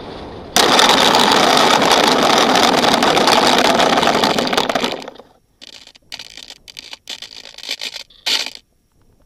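Loud rushing noise of an FPV drone's motors and propellers. It starts suddenly, breaks into short choppy bursts after about five seconds, and stops near the end.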